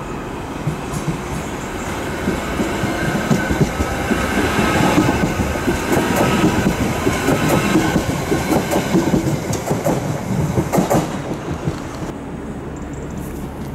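Merseyrail Class 777 electric multiple unit running past along the platform. Its wheels clatter over the rail joints, building to the loudest part as the carriages go by and fading after about 11 seconds.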